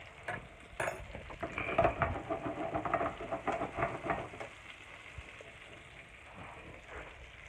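Butter frying in a hot pan, sizzling and spattering with a sharp crack about a second in. It is busiest over the first few seconds, then settles to a softer steady sizzle.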